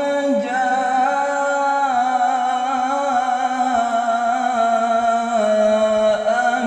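A male qari reciting the Quran in melodic tajwid style, stretching one syllable into a long sustained note. The pitch shifts a few times, most clearly dropping about five seconds in.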